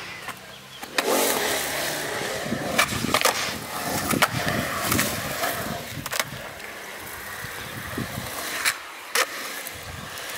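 Skateboard dropping in on a concrete ramp about a second in, then its wheels rolling over the concrete, with several sharp clacks of the board.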